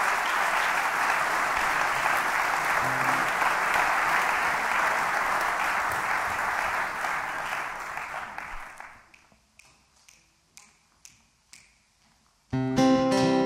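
Audience applauding, dying away about nine seconds in, with a few last scattered claps. Near the end, a piano starts playing an introduction.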